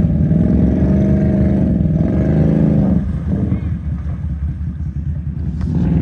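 Can-Am Renegade 1000's V-twin engine revving hard as the quad churns through a deep mud hole, its pitch rising and falling. About halfway through the revs drop off and it runs lower, then it revs up again near the end.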